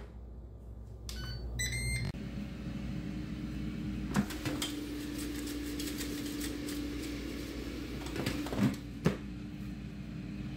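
Ninja air fryer beeping a few times as it is set running again, then its fan running with a steady hum; a few sharp clicks from handling it.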